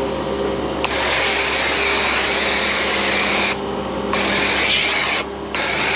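Cold-water pressure washer running with a steady motor hum while its jet hisses against the tractor in three bursts: one starting about a second in and lasting over two seconds, then two shorter ones as the trigger is released and pulled again.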